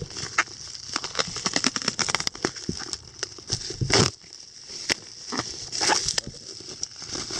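Bubble wrap and brown packing paper crackling and crinkling as a wrapped book is cut and pulled free of its packing by hand, many small crackles with two louder rustles about four and six seconds in.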